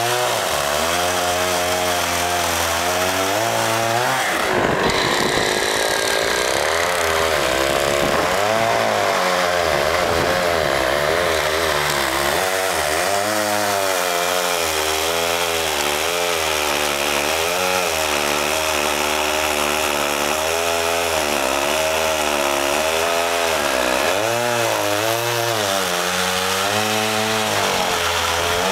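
Two-stroke petrol chainsaw cutting through a thick tree trunk, running loud and steady at high throttle, its pitch sagging and recovering again and again as the chain bites into the wood.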